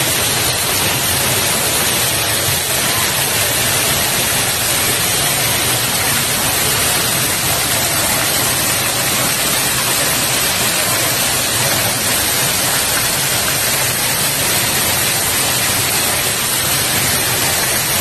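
Heavy rain with rainwater pouring off a railway platform roof in sheets and streams, a loud, steady rushing hiss of falling and splashing water.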